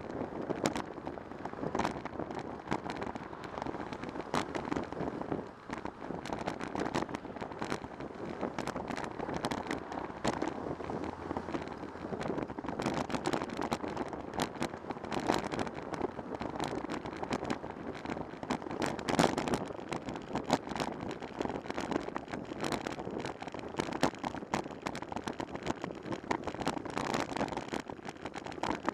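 Riding noise picked up by a bicycle-mounted camera: wind on the microphone and car traffic passing alongside, with frequent small clicks and rattles throughout.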